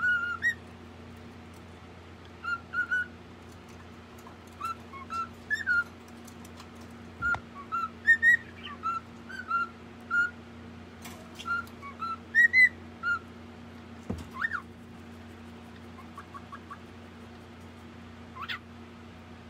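A small white pet parrot chirping in its cage: a string of short whistled chirps with pauses between them, and a couple of longer calls that sweep up in pitch later on.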